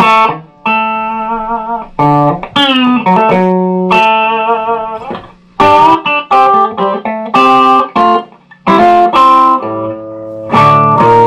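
Guitar played through a prototype 12AX7 cathode-follower tube preamp stage, picked in short phrases of single notes and chords with a few bent or sliding notes. The playing breaks off briefly twice, in the middle and about three-quarters of the way through.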